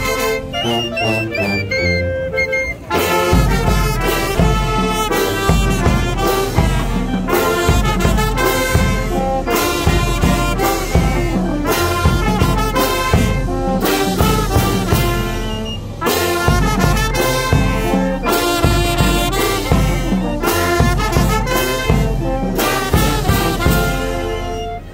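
Marching street brass band playing a march: trumpets and sousaphone over a steady beat of clashing hand cymbals. The music breaks off briefly about three seconds in and stops near the end.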